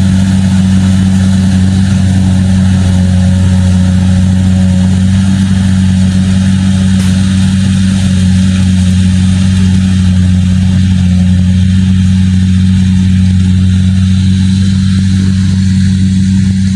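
Kubota DC-70G Plus combine harvester's diesel engine running steadily at working speed, with the rattle and whir of its cutting and threshing machinery over a constant low drone.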